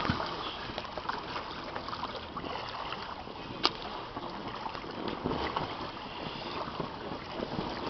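Pool water sloshing and splashing lightly around an inflatable water-roller toy as it rocks with someone inside, with one sharp click about halfway through.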